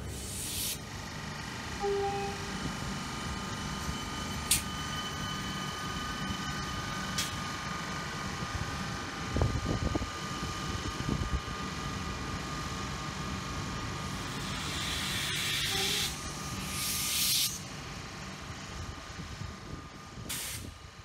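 Three-car Siemens Nexas electric suburban train pulling away from the platform, its traction equipment giving a steady whine over a low rumble. Air hisses about half a second in and again for a couple of seconds near three-quarters through, and two brief beeps and a few clicks and thuds come through, with the sound fading near the end.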